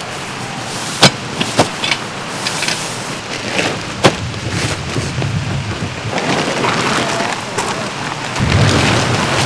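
Synthetic tent fabric of a Coleman Swagger Instant Up 2P tent rustling and crinkling as it is pulled from its bag and shaken out, with a few sharp clicks. Near the end, a deeper flapping comes as the tent is lifted up.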